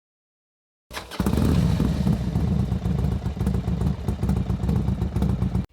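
Motorcycle engine running with a steady, rapid low throb. It comes in suddenly about a second in and cuts off abruptly just before the end.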